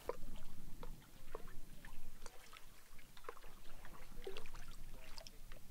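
Canoe being paddled: paddle blades dipping and dripping, with many small, scattered splashes and trickles of water.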